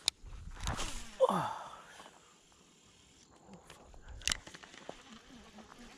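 A fishing cast: a swish and the line whirring off the reel, falling in pitch, about a second in. A sharp click a little after four seconds.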